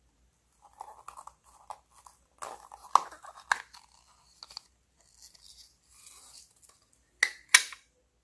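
Small plastic clamshell case handled and clicked open with a couple of sharp snaps, light rustling and tapping while it is held open, then snapped shut with two sharp clicks near the end.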